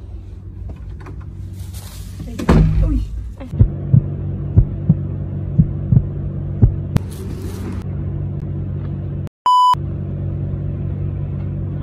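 A steady low hum throughout, with a burst of rustling handling noise about two and a half seconds in. About six sharp taps or knocks follow between roughly four and seven seconds. Near the end comes a short high censor bleep, with the sound cut out around it.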